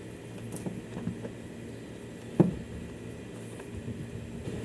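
Handling noises from hands working on the washing machine's switch wiring: a few light clicks and one sharp knock about two and a half seconds in, over a low steady hum.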